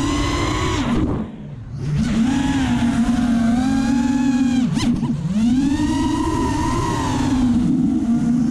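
The racing quadcopter's four Racerstar BR2205 2300kv brushless motors and 5-inch propellers are whining, heard from the on-board GoPro, with the pitch rising and falling as the throttle changes. About a second in the throttle is chopped and the sound drops away for half a second before the motors spool back up. Near the middle the pitch dips sharply and climbs again, with one sharp click.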